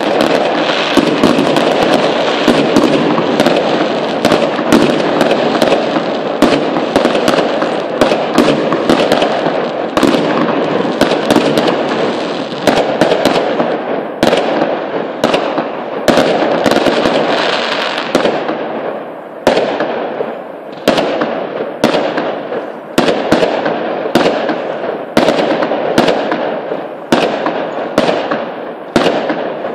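Aerial fireworks going off in quick succession: a dense run of bangs and crackling for the first half, then separate bangs about once a second, each trailing off in an echo.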